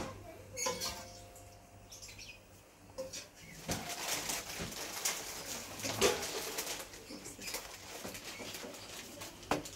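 Metal spatula scraping and knocking against a wok as pieces of pork in a little sauce are scooped out. A few sharp clicks stand out over a rustling scrape that picks up after a few seconds.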